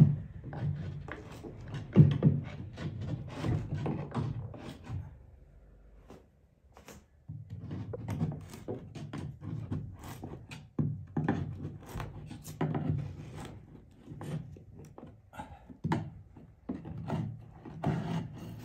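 Box cutter scraping and cutting along the edge of a wet, water-damaged ceiling, with irregular scrapes and knocks against the wooden trim and a short pause about six seconds in.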